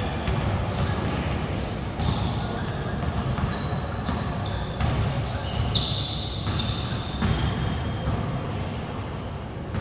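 Basketballs bouncing on a hard indoor court in a large gym, with short high sneaker squeaks and background voices.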